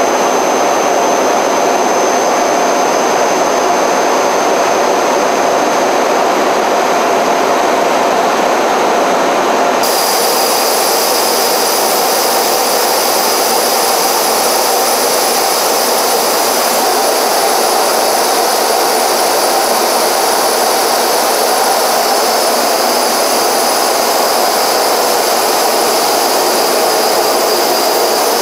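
Steady jet engine noise with a thin high whine over a rushing hiss. About ten seconds in, the sound changes abruptly and the high whine becomes much stronger.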